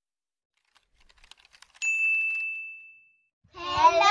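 Logo-intro sound effect: a few faint ticking clicks, then a single bright bell-like ding that rings and fades away over about a second and a half. Children start singing near the end.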